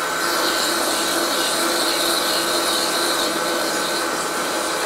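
Countertop blender running steadily, its motor whining as it grinds beet tops pushed into a kefir base.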